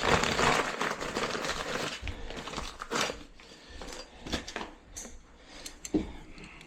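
Plastic packaging crinkling and rustling as a replacement toilet-handle part is handled, fading over the first second or two into scattered light clicks and taps.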